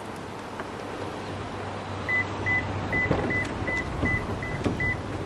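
Electronic beeper sounding about eight short, high, evenly spaced beeps, roughly two and a half a second, starting about two seconds in, over a steady low hum.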